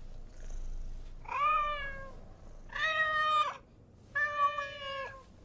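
A cat meowing three times, each meow a drawn-out call of most of a second with short pauses between.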